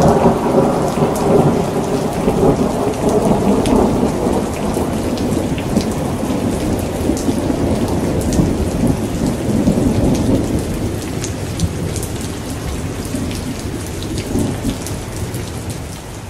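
Long roll of thunder rumbling and slowly dying away, over steady rain falling with scattered drop ticks.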